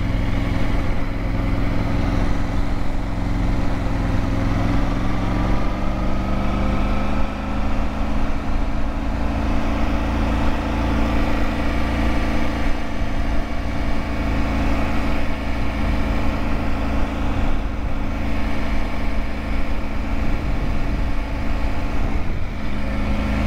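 Motorcycle engine running steadily while riding, its pitch climbing a few seconds in as it speeds up and then holding level. A low wind rumble on the microphone runs underneath.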